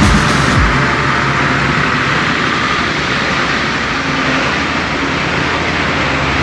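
A motor vehicle running steadily, with engine and road noise.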